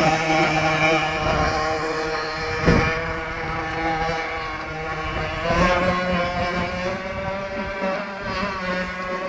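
Motor of a 1974 Lesro Rapier model speedboat running on the water, a steady buzzing tone whose pitch wavers and shifts as it goes, with wind buffeting the microphone.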